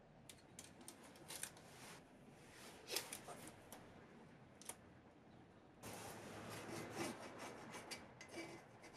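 Masking tape being laid, rubbed down and trimmed with a snap-off craft knife on the cast-iron body of a Record No. 3 vice. Faint scratching and rustling with small clicks, and a longer stretch of rubbing about two-thirds of the way through.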